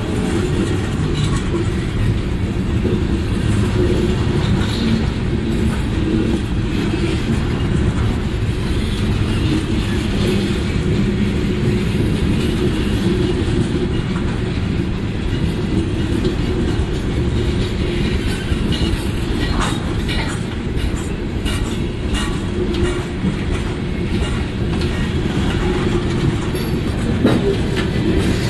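Open-top hopper cars of a CSX freight train rolling past: a steady rumble of steel wheels on rail, with scattered clicks and clanks from the wheels and couplers that come more often in the second half.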